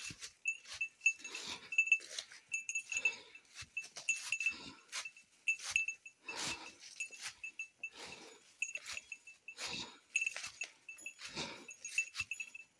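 A hiker's steps and breathing on a mountain trail, a noisy rustle about once a second, with a small bell tinkling over and over in between.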